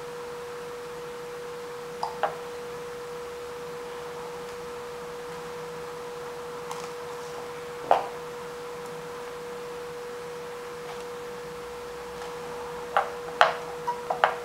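Light clicks and taps of a circuit board and soldering tools being handled on a tabletop: two close together about two seconds in, one near the middle, and a quick cluster near the end. Under them runs a steady hum at one pitch.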